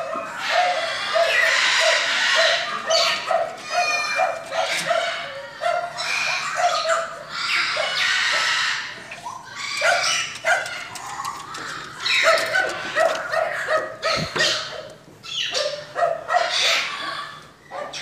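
Dogs barking and yipping in quick runs of short, evenly spaced barks, about three a second, over loud background noise.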